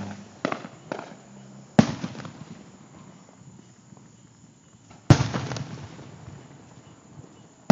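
Aerial firework shells bursting: a couple of lighter pops in the first second, then two loud booms, just under two seconds in and about five seconds in, each followed by a fading echo.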